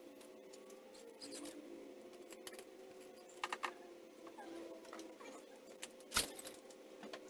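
Light clicks and rattles of small hardware being handled, with one louder sharp knock about six seconds in, over a faint steady hum.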